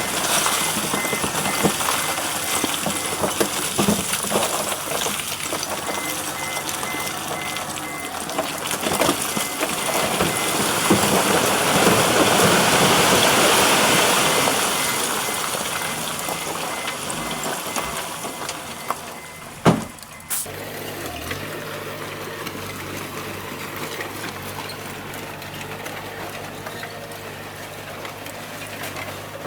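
Bulldozer's diesel engine working under load while pushing stone, with a noisy grinding swell that builds to its loudest around the middle and fades. A single sharp knock about two-thirds in, after which the engine settles into a steady low drone.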